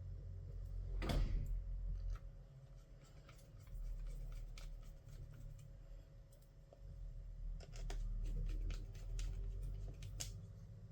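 Small clicks and taps of hands and tools handling the parts of an HP EliteBook 1040 G4 laptop during disassembly, with a louder knock about a second in and a sharp click near the end, over a low rumble of handling on the work surface.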